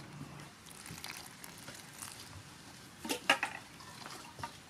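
Wooden spatula stirring flour, egg and chopped green onion into a batter in a stainless steel bowl: soft wet scraping and squishing, with a few sharp knocks of the spatula against the bowl about three seconds in.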